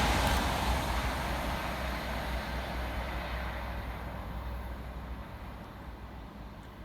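Class 390 Pendolino electric train passing through and receding, its noise dying away steadily; a low rumble underneath fades out about five seconds in.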